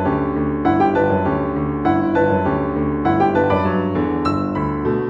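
Background music led by piano, with notes struck in a steady pattern.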